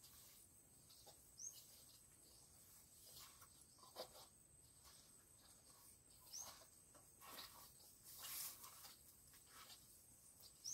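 Near silence: faint outdoor ambience with faint scrapes, and a short high bird chirp heard a few times.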